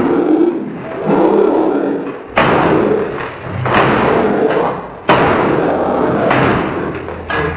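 Heavily slowed-down audio: harsh, smeared blasts of noise that start suddenly about every two and a half seconds and fade away in between.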